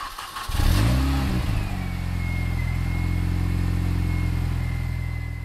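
Car engine starting about half a second in, its pitch rising and falling in a quick rev, then settling into a steady idle.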